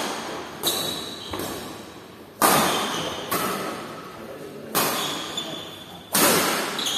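Badminton rackets striking a shuttlecock during a fast doubles rally, about seven sharp hits a second or so apart, each echoing in the hall.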